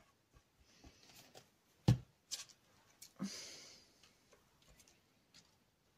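Faint handling sounds as a Fabri-Tac glue bottle is used and put down on a craft table: scattered soft ticks and taps, one sharp knock about two seconds in, and a short rustle a little after three seconds.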